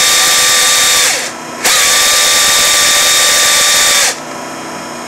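Stanley hydraulic chainsaw running at full throttle with a steady, unwavering pitch. It drops off briefly about a second in and comes straight back, then falls to a quieter steady running sound just after four seconds.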